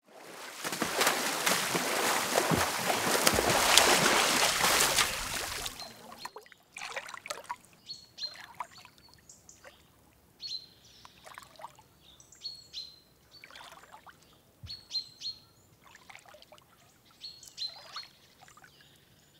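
Loud rushing noise full of crackles for about the first six seconds, ending abruptly; then small birds chirping in short, separate calls, some clear high notes and some quick falling sweeps.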